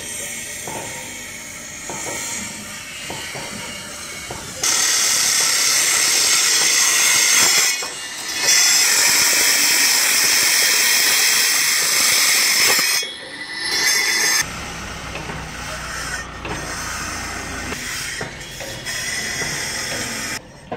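Electric angle grinder running and cutting: a loud, steady, high-pitched whine that starts sharply about four and a half seconds in, dips briefly twice, and cuts off about fourteen seconds in. Around it, quieter construction-site background with scattered knocks.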